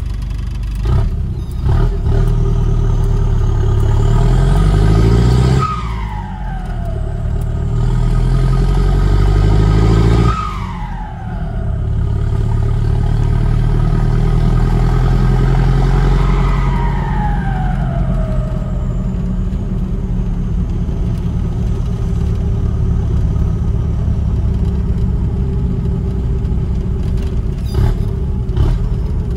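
Ford F1000's turbodiesel engine pulling hard through the gears from inside the cab, its turbo whistle rising with the revs. At each gear change, about five and ten seconds in, the revs drop and the whistle falls away; a third pull winds up and then trails off into steady cruising.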